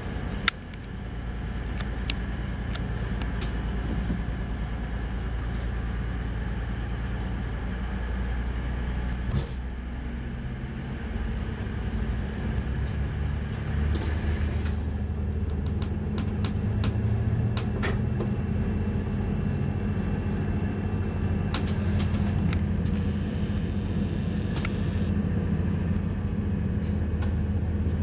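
Underfloor diesel engine of a Class 222 Meridian train, heard inside the carriage: a steady low hum that grows louder and rises in pitch from about halfway through as the train powers away. A few sharp clicks and knocks.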